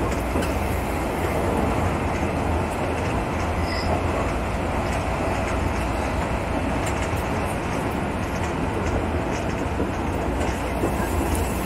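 JR West local electric train running along the track: a steady rumble of wheels on rail, with a few faint clicks.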